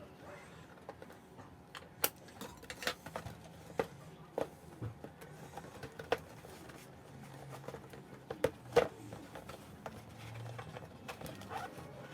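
Irregular light clicks and taps of a plastic model kit and its packaging being handled, a few sharper knocks among them.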